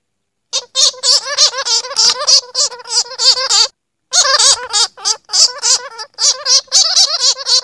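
Bats chattering: rapid, squeaky, warbling calls mixed with clicks, pausing briefly about halfway through.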